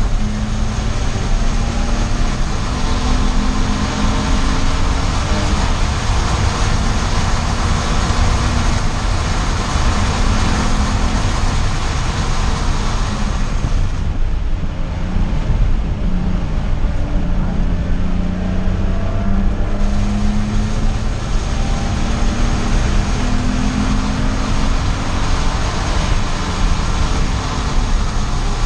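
Car engine running hard at speed, its note rising and falling again and again as it accelerates and shifts, under heavy wind and road noise. The high hiss dulls for several seconds midway.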